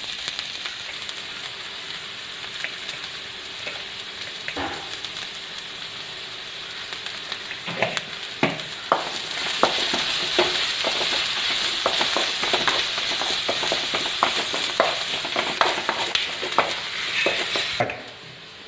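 Sliced onions with ginger, garlic and green chillies sizzling in hot oil in a wok-style pan (cheenachatti) while being stirred. The stirring spatula clicks and scrapes against the pan. The sizzle grows louder about halfway through and drops off abruptly shortly before the end.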